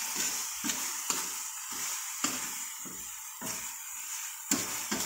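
Chicken and vegetables sizzling in a stainless steel wok while a metal spatula stirs and tosses them, with a steady hiss and irregular sharp clinks and scrapes of the spatula against the pan.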